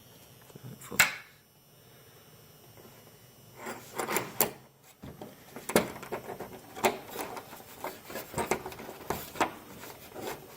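Irregular clicks and knocks of metal hardware and tools being handled while hood pins are fitted, with one sharp knock about a second in and a denser run of clatter from a few seconds in.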